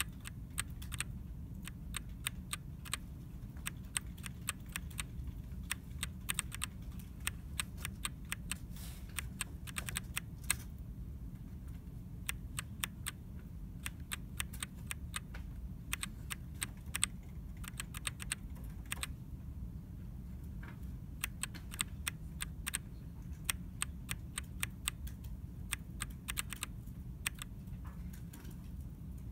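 Keys of an ErgoDox split mechanical keyboard being tapped in irregular runs of sharp clicks with short pauses, keying in text as Morse code, over a steady low hum.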